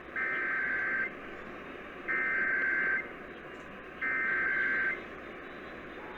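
Emergency Alert System SAME header: three bursts of high, buzzing data tones, each just under a second long and about a second apart, over a steady radio hiss, marking the start of a monthly test alert.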